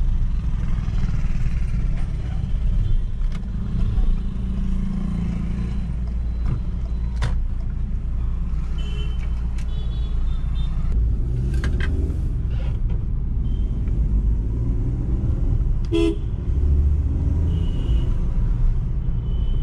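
Ford EcoSport heard from inside the cabin while driving in traffic, a steady low engine and road rumble. Other vehicles' horns give several short honks, with a few sharp knocks from the car over the road.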